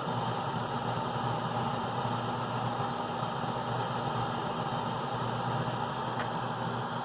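92% efficient gas furnace running a heating cycle: a steady hum with an even rush of air from the burner and blower.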